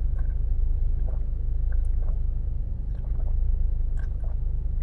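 Steady low rumble inside a car's cabin, with a few faint clicks and rustles.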